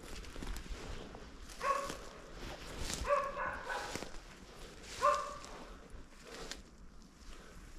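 Wachtelhund (German spaniel) barking, a few barks in short bouts with pauses between them, at a moose it has tracked down. Footsteps rustle through low undergrowth.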